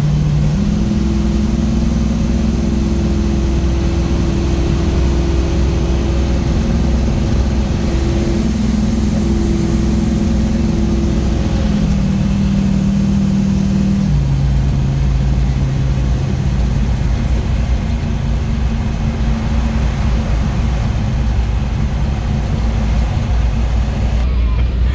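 1967 Chevrolet Camaro's engine and exhaust droning steadily inside the cabin at highway cruise, with road and tyre noise, the engine note stepping up once just after the start and lower twice around the middle.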